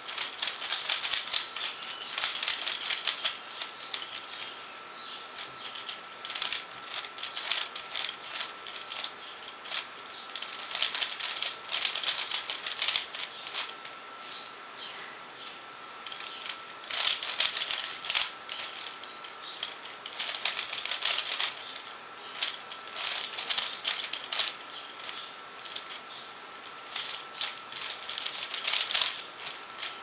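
A 3x3 Rubik's Cube being turned by hand: rapid plastic clicking and clacking of the layers, in quick runs of turns separated by short pauses.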